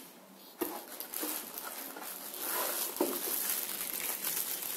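Plastic bag crinkling and rustling as hands handle and lift out a bagged accessory, starting about half a second in, with irregular small crackles.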